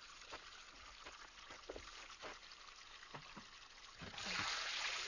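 A few faint knocks, then water starts pouring and splashing about four seconds in, running on steadily.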